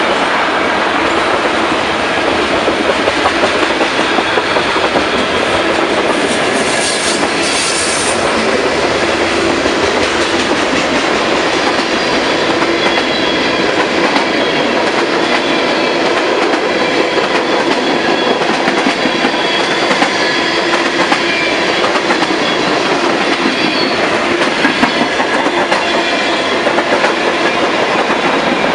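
Freight train of tank cars and boxcars passing close by: steel wheels rolling and clattering over the rails in a loud, steady, unbroken run of car after car.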